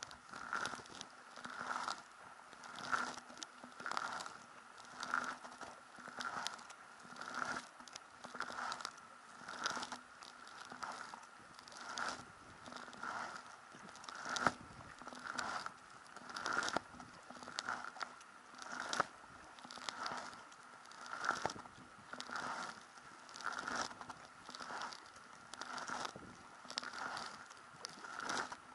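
Kayak paddle strokes at a steady rhythm: a double-bladed paddle dipping and pulling through the sea with a splashy swish about once a second, alternating sides. A faint steady tone runs underneath.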